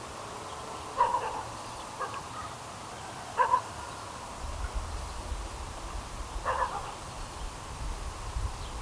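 Short animal calls, four single barks or caws: about a second in, at two seconds, at three and a half and at six and a half seconds. A low rumble sets in about halfway through.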